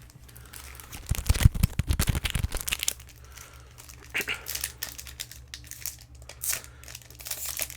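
Crinkling of foil Pokémon booster-pack wrappers and card packaging handled close to the microphone. A loud burst of rustling with low bumps comes about one to two and a half seconds in, then softer intermittent crinkles.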